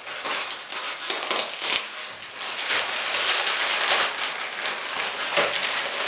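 Plastic courier mailer bag being pulled open by hand: a dense crinkling and crackling of the plastic, growing louder about halfway through.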